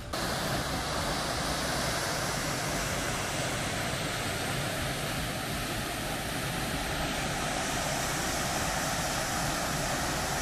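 Waterfall: a steady, even rush of falling water that starts suddenly and cuts off suddenly near the end.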